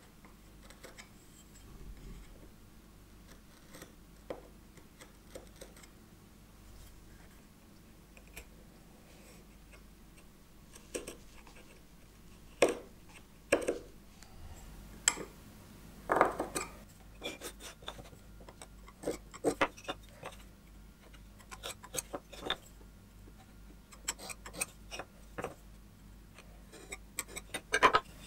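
A marking knife scoring wood, with faint scratches and clicks. From about halfway there is a run of sharp clicks and knocks as wooden pieces and tools are handled and set down on a wooden workbench.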